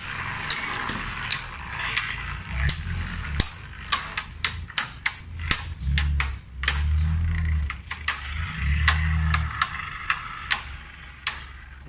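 Two Beyblade Burst spinning tops, Hazard Kerbeus and Hound Dog, whirring as they spin on a plastic stadium floor, with sharp plastic clacks each time they collide, about two or three a second at uneven intervals. A low hum grows louder for a few seconds about halfway through.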